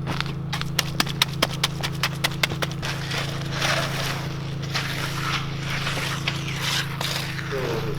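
Hand tools working wet concrete along the slab edge: a quick run of sharp taps, then scraping strokes, over a steady low engine hum.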